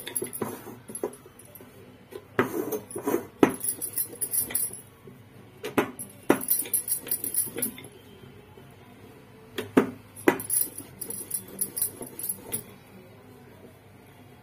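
Wooden rolling pin working dough thin on a steel plate, with several sharp knocks against the plate and bursts of metal bangles jingling on the roller's wrist.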